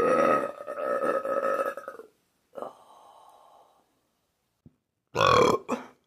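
A woman belching loudly: one long, steady burp of about two seconds, then a shorter one, and another brief burp near the end.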